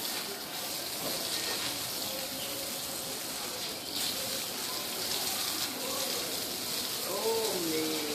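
Water from a garden hose splashing onto a wet tiled floor as a steady, even hiss.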